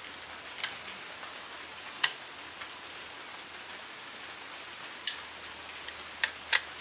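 Sharp metal clicks and clacks of an AR-15 pistol's upper receiver being handled and fitted onto the lower receiver, over a steady hiss. The loudest click comes about two seconds in, and a few more come near the end.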